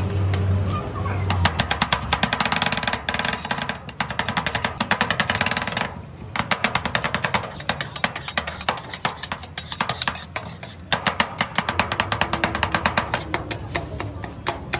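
Two steel spatulas rapidly chopping on a steel rolled-ice-cream cold plate, a fast metallic clatter in several runs with short breaks, as an Oreo cookie is chopped into the freezing ice cream base.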